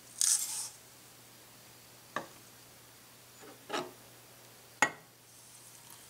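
Brown sugar poured from a plastic tub sliding into an empty stainless steel saucepan, a short rustling hiss just after the start. It is followed by three sharp clicks and knocks, the last the loudest, as the plastic tub and a ceramic pitcher are set on and lifted from the glass stovetop, and a faint trickle of water pouring into the pan begins near the end.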